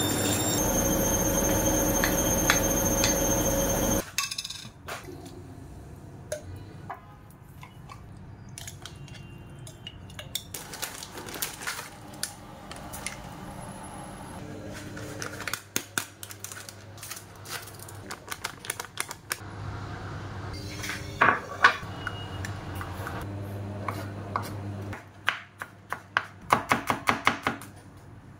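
Kitchen cooking sounds: a pot sizzling and hissing loudly for the first four seconds, then quieter clinks and knocks of bowls and utensils. Near the end a kitchen knife chops garlic on a wooden cutting board in quick strokes.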